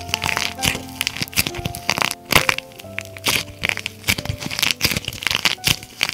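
A hardened plaster-clay shell cracking and flaking off soft clay as hands bend and squeeze it: many sharp, irregular cracks in quick succession. Piano music plays underneath.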